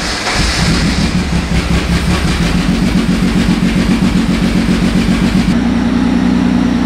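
Banger race car's engine catching and running with a regular, uneven pulse, settling to a steadier idle near the end.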